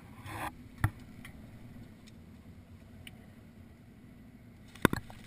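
Handling knocks on a boat: a brief rustle, a sharp knock about a second in, and a quick double knock near the end, over a low steady rumble of wind and water.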